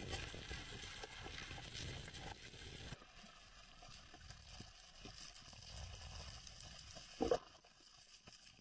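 Underwater reef ambience: a constant fine crackle of clicks over a low rush of water. It drops quieter about three seconds in, and a brief louder burst comes about seven seconds in.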